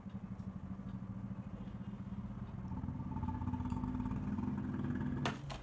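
A steady engine-like hum whose pitch rises a little about halfway through, then stops abruptly with a short sharp noise near the end.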